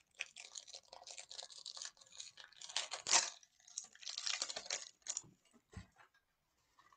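Plastic shrink-wrap being picked at and torn off a deck of cards, crinkling and crackling, loudest about three seconds in. A few light clicks follow near the end.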